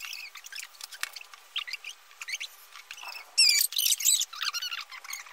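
Rapid high-pitched chirps and squeaks, with a loud burst of them about three and a half seconds in.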